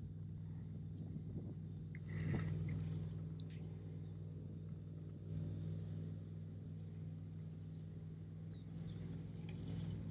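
Steady low hum of a small motor running, with a few faint, short, high chirps and squeaks scattered through.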